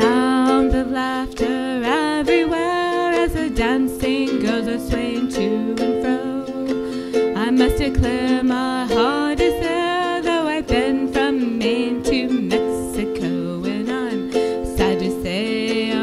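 A woman sings a calypso-style song while strumming chords on a ukulele. Her voice bends up and down over the steady chords, with no break.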